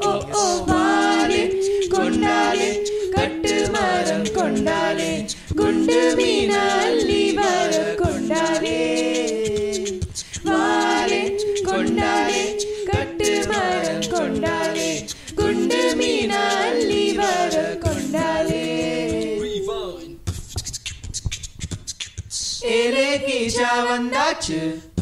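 An a cappella vocal group sings sustained harmony over beatboxed percussion. About twenty seconds in, the voices drop out and the beatbox carries on alone for a couple of seconds. A short sung chord then comes back near the end.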